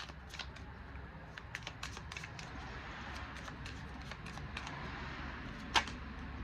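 A deck of tarot cards being shuffled by hand: many light, quick clicks and flicks of the cards, with one sharper snap near the end, over a steady low rumble.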